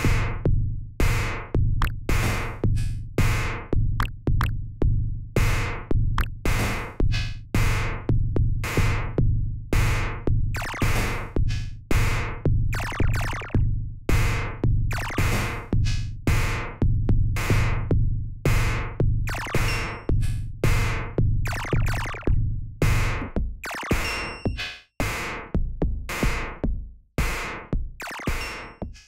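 Sequenced glitch percussion pattern from the Inear Display Ephemere software synthesizer: sharp, noisy electronic hits about twice a second over a steady low bass. Near the end the bass drops out and the hits become sparser.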